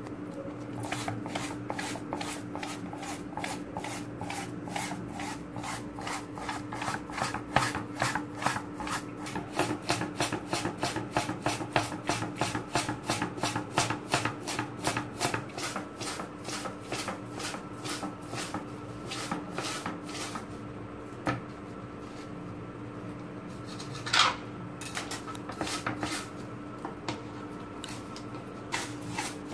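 Steel wool scrubber rubbed briskly back and forth over a stinging catfish's skin on a plastic cutting board, cleaning the scaleless skin: rapid rasping strokes, several a second, thinning out in the last third with one sharper stroke near the end.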